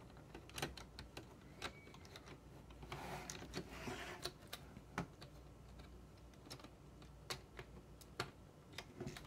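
Faint, scattered clicks and taps of LEGO plastic pieces being handled and pressed into place, with a brief soft rustle about three seconds in.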